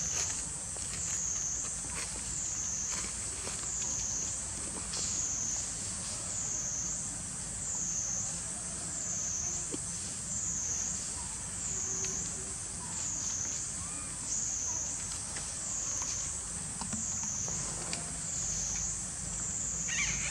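A high-pitched cicada chorus drone that swells and fades about once a second without a break, with a few faint clicks.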